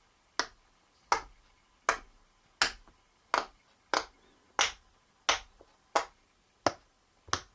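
Silicone pop-it fidget toy, its bubbles pressed in one at a time by a finger: eleven sharp pops at a steady pace, about three every two seconds.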